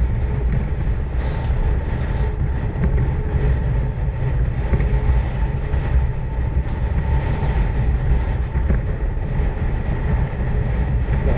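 Motorcycle engine running steadily on the move, with a dense, even rumble throughout.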